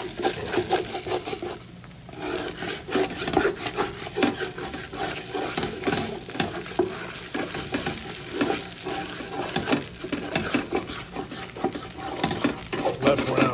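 Ground beef frying and sizzling as it browns in a stainless steel pot, with a wooden spoon stirring and scraping the crunchy browned bits off the bottom in quick irregular strokes. There is a brief lull about two seconds in.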